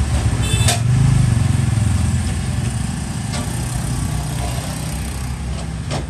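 A road vehicle's engine running with a steady low rumble that swells about a second in. A sharp click with a brief metallic ring comes just before the swell.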